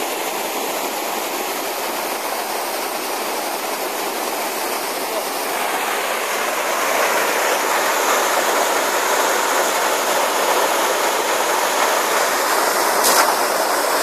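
Artificial rock waterfall pouring into a pond: a steady rushing splash that grows louder about halfway through.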